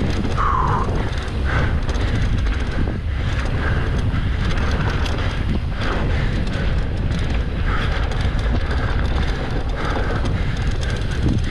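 Wind rushing over the microphone of a mountain biker riding downhill, with scattered knocks and rattles from the bike over rough ground.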